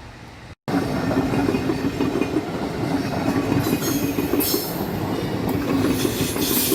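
Train running through a station, with wheels rolling and clattering on the rails and a steady hum. It starts abruptly just under a second in, and high-pitched wheel squeal comes in from about three and a half seconds.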